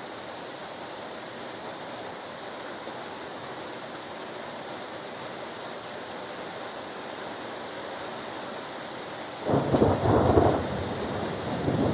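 Steady rain hiss, then about two-thirds of the way through a sudden loud clap of thunder breaks in and rumbles on, swelling again near the end.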